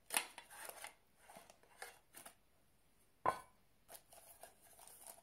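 Fossil watch tin being opened by hand: a sharp clack as the lid comes off, then rustling of the plastic wrapping and paper inside, with another sharp knock about three seconds in.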